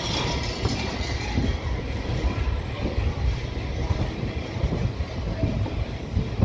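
Indian Railways passenger coach rolling slowly through a station, heard from aboard: a steady low rumble with irregular wheel knocks and clatter.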